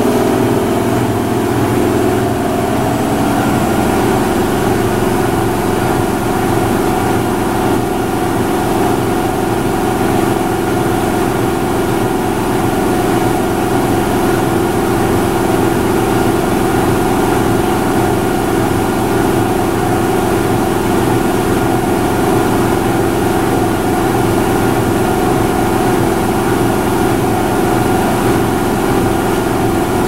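Electrolux LFE10 front-load washing machine in its final spin, drum turning at speed: a steady hum with a motor whine over it. The pitch shifts in the first few seconds, then a higher whine comes in and holds steady.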